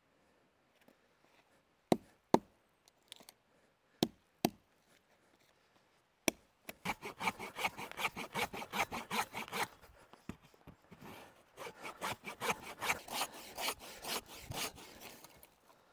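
About five sharp, spaced-out axe chops into a dead conifer log, then a Silky Bigboy 2000 folding saw cutting through the log in quick back-and-forth strokes. The sawing comes in two runs with a short pause between.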